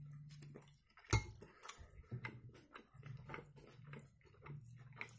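Close-miked chewing of bread soaked in soup: wet mouth smacks and clicks scattered throughout, with a sharper knock about a second in.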